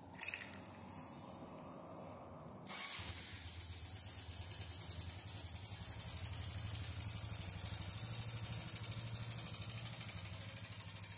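Honda Biz 125 single-cylinder four-stroke engine catching about three seconds in and then idling steadily with a fast, even pulsing and a strong mechanical noise, which the mechanic traces to a failing cam chain tensioner whose spring has lost pressure.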